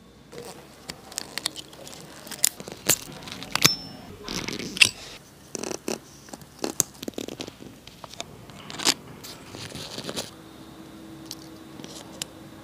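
Small steel watchmaker's tools clicking and scraping against the parts of a vintage Tudor Oyster wristwatch as it is taken apart: irregular sharp clicks with short scraping bursts.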